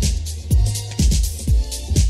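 Electronic dance music with a steady kick drum about twice a second, a low bass line and hi-hats between the beats.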